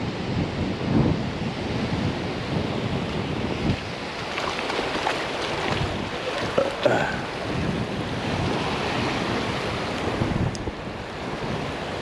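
Ocean surf washing onto the beach, with wind buffeting the microphone.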